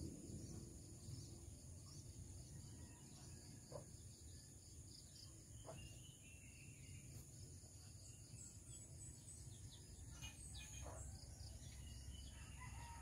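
Near silence: faint outdoor ambience of insects trilling steadily, with a few faint bird chirps in the second half.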